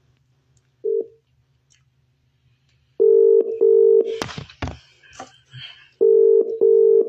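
Telephone ringback tone: a steady low double beep, repeating about every three seconds, while the called phone rings at the other end. There is a short single beep about a second in, and faint clicks and rustling between the rings.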